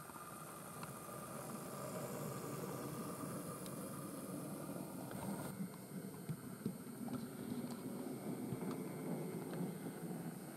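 Roco model class 112 electric locomotives running on model railway track: a steady rumble of motor and wheels with light clicks. One passes and drives away, and another approaches near the end.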